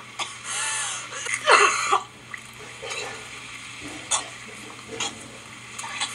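A woman gagging and retching as she pulls a long hair out of her throat, loudest about a second and a half in, followed by faint scattered clicks.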